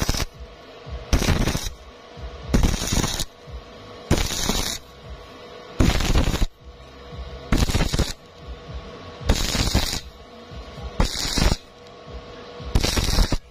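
Stick-welding arc on thin square steel tube, struck and broken again and again: nine short crackling bursts of about half a second each, roughly every one and a half seconds, a stop-start stitch technique for thin-walled tube.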